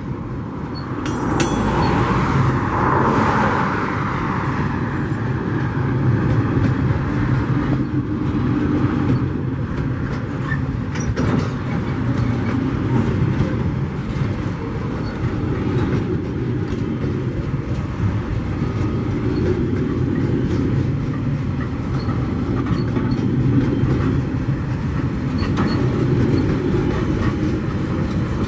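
Loaded freight wagons, log wagons then container wagons, rolling past on the track: a steady rumble of steel wheels on rail, with a few sharp clicks.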